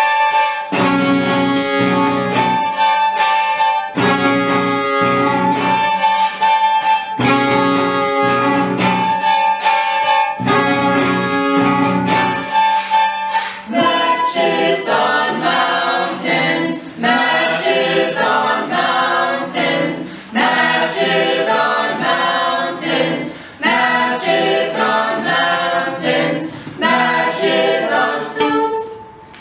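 Live experimental chamber ensemble music for two voices, violin, viola, saxophones and electric guitars: sustained chords repeated in blocks of a second or two. About fourteen seconds in, the music turns into a denser, busier weave of singing and instruments.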